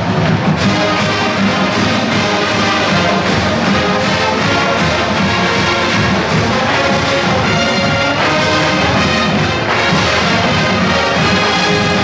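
Marching band playing, with brass in front holding full chords over a steady drum beat.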